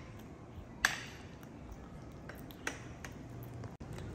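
A knife and fork clinking against a ceramic plate while cutting steamed pumpkin: one sharp ringing clink about a second in, and a fainter tap near the end of the third second.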